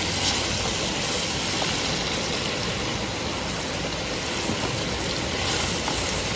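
Steady rushing of a river flowing.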